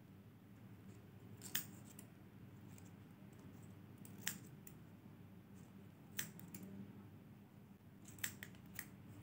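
Small scissors snipping: single sharp snips a couple of seconds apart, then three quick snips near the end.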